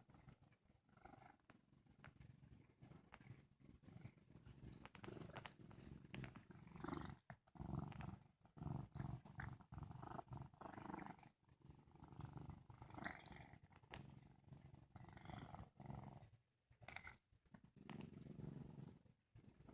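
A sleepy domestic cat purring, a faint low rumble that swells and fades with each breath, with short breaks every few seconds.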